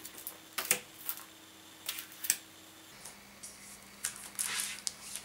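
Stacked paper magazines being handled and shifted by hand: scattered short taps and rustles of paper, with a closer cluster of them near the end.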